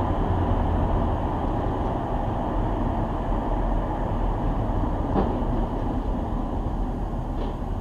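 Steady road and engine rumble of a car driving along a highway, heard from inside the cabin, with two faint clicks about five and seven seconds in.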